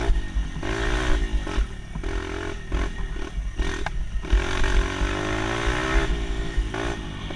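Motorbike engine running as it is ridden, its pitch rising and falling with the throttle, easing off and picking up again several times.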